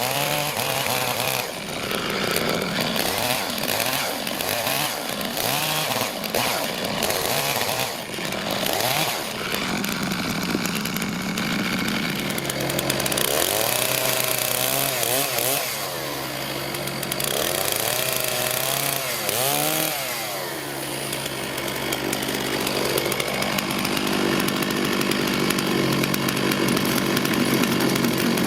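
Two-stroke chainsaw running under load while cutting firewood, its engine pitch rising and falling repeatedly partway through, then running steady.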